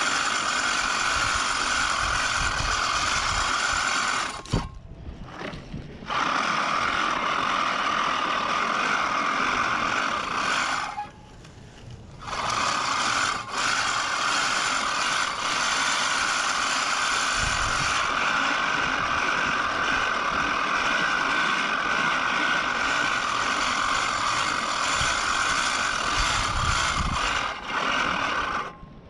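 Push reel lawn mower with freshly sharpened blades, its spinning reel whirring steadily as it cuts grass. It stops briefly twice.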